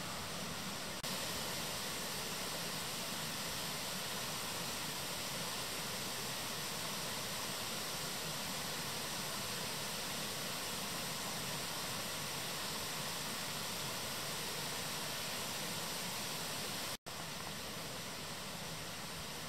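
Steady rushing of a small forest stream, an even hiss with no distinct calls, briefly cut out near the end.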